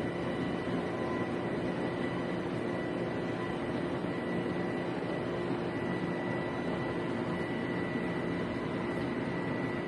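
Espresso machine pump running steadily while a shot is pulled: an even hum with a steady high tone over it.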